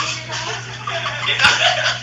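Voices talking and chuckling together at a party, with a sharp click about one and a half seconds in.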